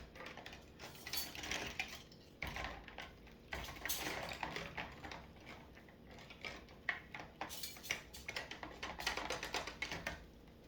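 Dishes and cutlery clattering and clinking as they are handled, a run of irregular knocks and clicks.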